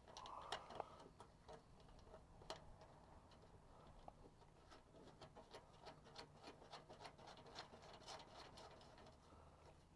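Faint, irregular small clicks and ticks of nuts and washers being fitted and hand-tightened onto bolts, coming thicker in the second half.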